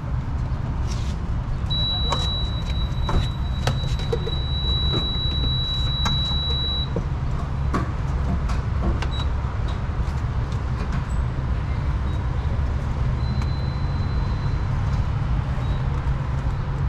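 A car on the move: a steady low rumble of engine and tyre noise inside the cabin, with scattered faint clicks and knocks. A thin, high, steady tone sounds for about five seconds starting about two seconds in, and returns more faintly later.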